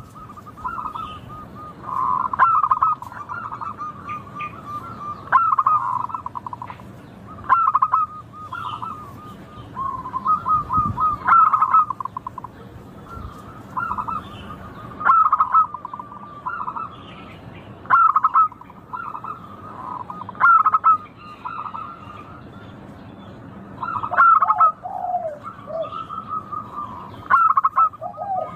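Zebra dove (perkutut) cooing its song: a phrase of quick rolling coo notes repeated about every three seconds, with fainter chirps between the phrases.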